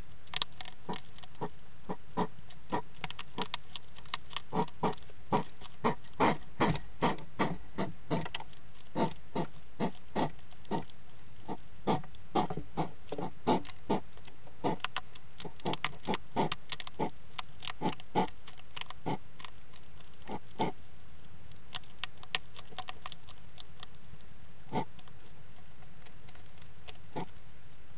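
Hedgehogs eating dry kibble from a bowl: a fast, irregular run of crisp crunching clicks that thins out to occasional crunches in the second half. The sound is narrow and boxy, as picked up by a CCTV microphone.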